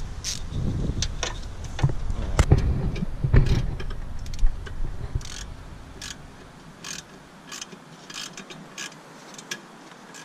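Metal hand tools clicking and clanking as bolts are worked on, heavier knocks and handling over the first few seconds, then a scatter of light, irregular clicks.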